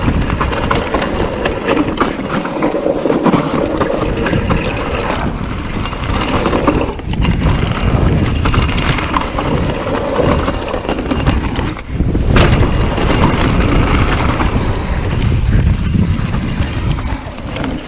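Mountain bike descending a dirt trail, heard from a camera mounted on the rider: wind buffeting the microphone over the rumble of the tyres on dirt, with the bike rattling and clattering over bumps. The noise eases briefly twice.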